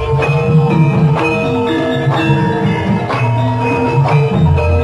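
Javanese gamelan playing dance accompaniment: struck bronze metallophones ringing in sustained pitched notes over a busy pattern of drum strokes.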